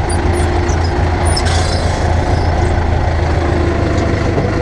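Ursus tractor's diesel engine running steadily at low revs, heard from inside its cab as the tractor creeps backwards.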